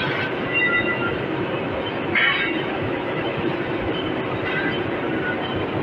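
Steady running noise of CNC machine-shop machinery, with a few short, high metallic squeals, the clearest about two seconds in.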